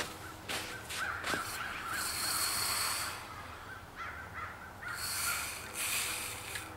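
Red-hot rebar being quenched in water, hissing and sizzling as the steam comes off, in two long hissing bursts about two and five seconds in. A couple of knocks near the start.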